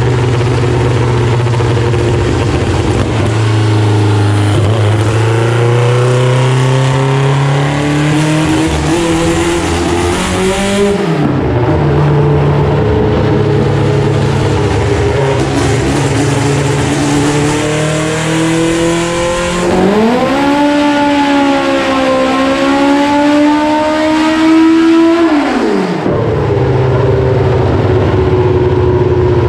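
Performance car engine under hard acceleration, twice. The revs climb steadily for several seconds, then fall away abruptly as the throttle is lifted, and the engine runs steadily in between.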